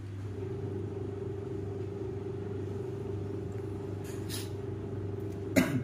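Steady low mechanical hum, like a motor running nearby, with a brief loud sound that falls in pitch near the end.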